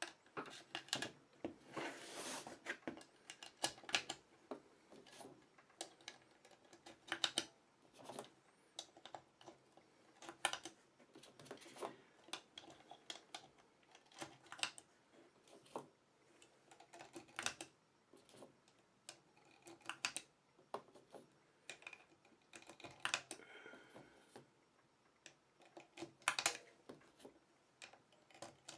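9mm cartridges being pushed one by one into a Glock 17 magazine with a +6 extension: irregular sharp clicks as each round snaps down past the feed lips against the spring, with light clinks of brass between them.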